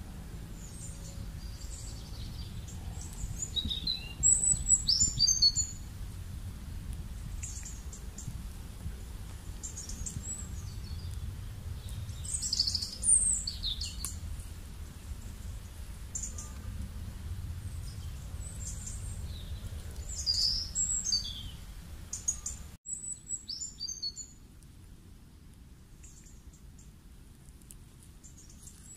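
Songbirds chirping and singing in short, high bursts, with the loudest phrases about 4, 13 and 20 seconds in, over a steady low rumble. The rumble stops abruptly about three quarters of the way through, leaving quieter chirps.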